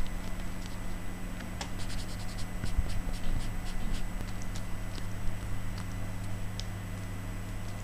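Light scratching and small clicks from hands handling a leather watch strap and its metal buckle, with the strap edge being rubbed, over a steady low hum.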